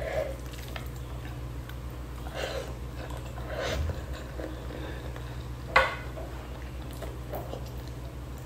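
Soft eating sounds: fingers picking through shredded chicken and quiet chewing, with one sharp click a little under six seconds in, over a steady low hum.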